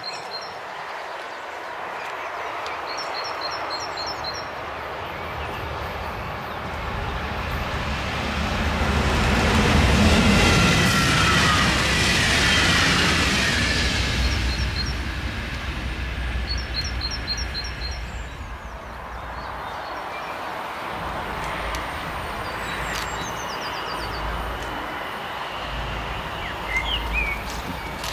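Birdsong in short repeated phrases. A louder passing vehicle swells and fades about ten seconds in. Near the end comes the low engine rumble of a red DB diesel multiple unit approaching along the line.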